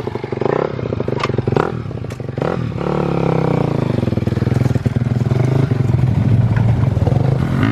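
Honda CRF250 dirt bike's four-stroke single running as it rides off, its engine note rising and falling through the first few seconds, then settling into a steadier drone.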